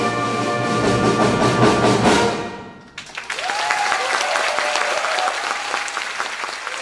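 Audience applauding, fading out after about two and a half seconds. A second round of applause starts about three seconds in, with a few voices cheering over it.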